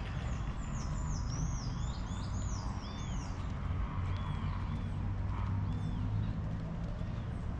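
Birds chirping: a quick run of high, arching chirps over the first three seconds or so, then lower arched notes repeating every second or so, over a steady low rumble.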